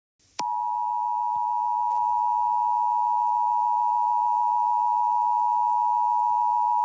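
Emergency Alert System attention signal: two close-pitched pure tones sounding together as one steady alarm tone, cutting in abruptly with a click about half a second in. It marks the start of a broadcast emergency alert.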